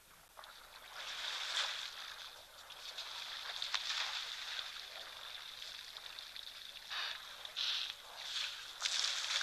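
Lioness lapping water, wet laps in a loose rhythm that comes about every 0.7 s near the end, over a steady high-pitched hum.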